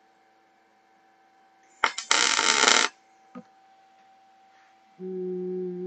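A loud burst of hissing noise lasting about a second, starting about two seconds in, over a faint steady electrical hum. Near the end a steady, even-pitched tone starts and holds level.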